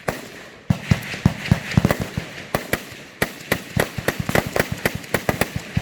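Rapid, irregular gunfire: many sharp shots in quick succession, several a second, with short echoing tails and one brief lull about halfway.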